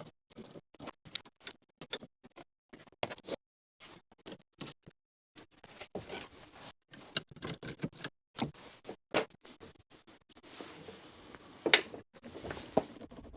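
Ratchet wrench clicking as 10 mm bolts are tightened, in uneven runs of sharp clicks broken by short pauses, with one louder clack near the end.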